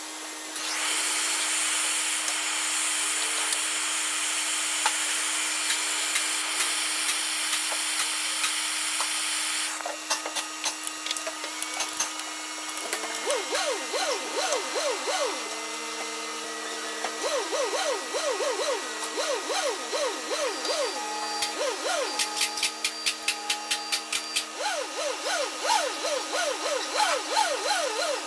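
MAP gas torch hissing steadily for about nine seconds while heating the exhaust around the particulate-matter sensor to free it, then cutting off sharply. After it come runs of rhythmic metal squeaks and clicks as a spanner works the sensor loose.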